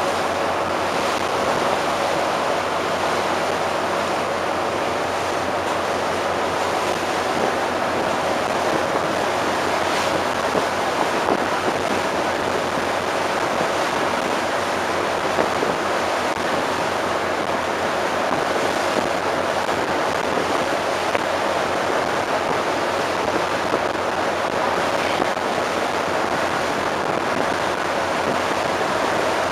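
Steady rush of sea water past a moving ship, with wind buffeting the microphone and a low, even hum underneath.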